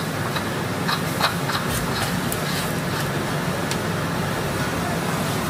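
Steady low hum and hiss of background noise, with a few faint light clicks about a second in as plastic protective caps are handled on the water heater's pipe fittings.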